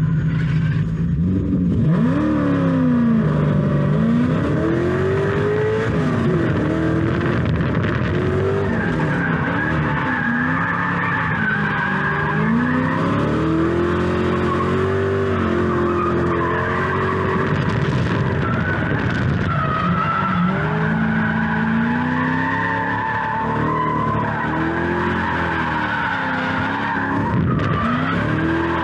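Lexus SC400 drift car on a drift run: the engine revs rise and fall again and again as the driver works the throttle, with the tyres squealing through the slides, heard from a camera on the car.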